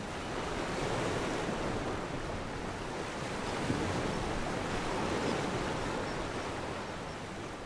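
Steady rush of sea water along a sailing yacht's hull, with wind.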